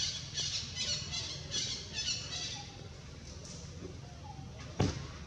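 A rapid series of high-pitched squeaky animal calls, about two or three a second, dying away about halfway through. A single sharp knock near the end.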